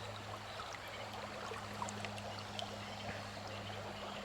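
Creek water running steadily through a current, with a faint steady low hum underneath and a few small clicks.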